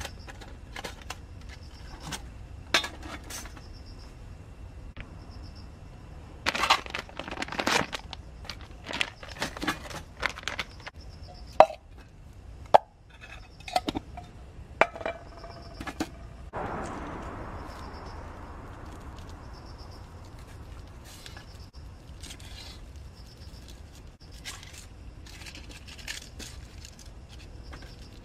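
Clinks and clicks of thin metal parts being handled: the hinged panels of a folding mini wood stove being pinned together and set up, then a small metal tin. A busy run of clinks comes in the first third, and about halfway through a rasping sound starts suddenly and fades over about two seconds.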